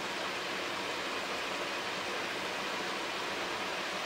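Mutton curry sizzling steadily in oil in a steel kadai over a gas flame, at the browning stage where the oil has separated from the masala.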